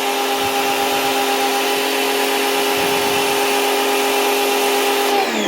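Sun Joe SPX2004 electric pressure washer running under load: a steady motor-and-pump hum with the hiss of the water spray. Near the end the motor winds down, its pitch falling.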